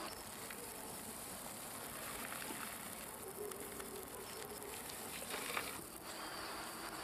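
Steady high-pitched chirring of night insects such as crickets, with a soft patter of earth dropped by hand onto loose soil about five and a half seconds in.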